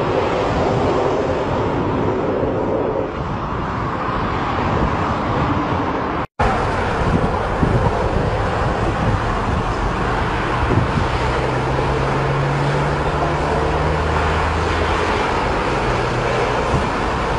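Fighter jet engine noise from a low pass: a steady, loud rushing that eases about three seconds in. After a sudden cut about six seconds in, a second stretch of rushing jet noise follows, with a steady low hum through the middle.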